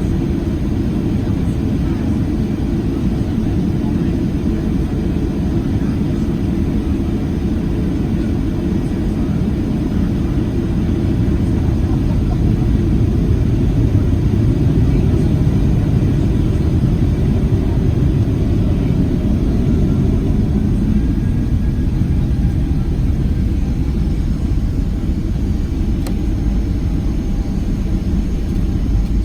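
Boeing 737-700's CFM56 engines and airflow giving a steady low rumble heard inside the cabin, swelling slightly about halfway through.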